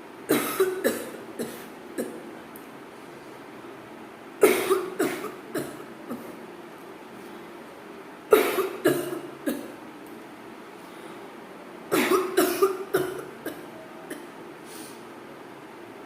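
A person coughing on purpose in four bouts about four seconds apart, each a quick run of several hacking coughs.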